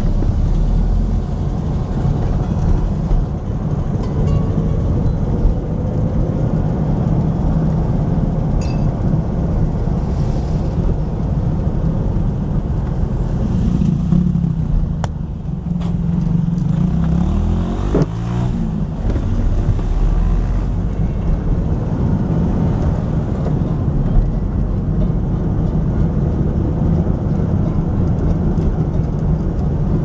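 Car engine and road noise heard from inside the moving car's cabin, a steady low rumble with a brief dip and a short rise and fall in pitch about halfway through.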